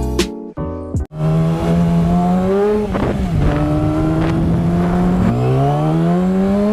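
Music cuts off about a second in, then a motorcycle engine under way, its pitch climbing as it accelerates and dropping twice at gear changes.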